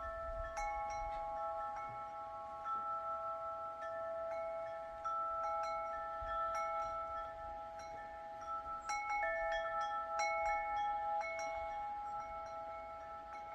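Wind chimes ringing irregularly, several pitched tones struck at random and ringing on over one another, with a busier cluster of strikes about nine seconds in.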